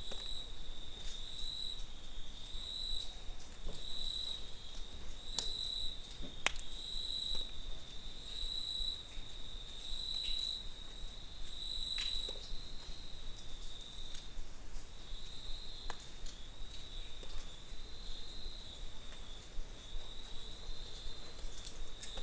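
Crickets chirping in a high, pulsing chorus, about one pulse a second, which turns more even in the second half. A few sharp clicks come about five, six and twelve seconds in.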